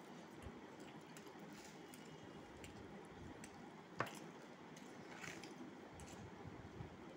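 Fingers squishing and mixing soft cooked rice on a steel plate, faint and wet, with scattered small ticks and one sharp click against the plate about four seconds in.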